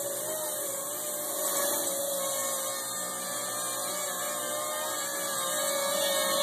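Custom V-tail quadcopter/tricopter hybrid in flight: its four electric motors and propellers (two 11-inch props up front, two three-bladed 7-inch props on the rear V-mount) give a steady whine over a hiss.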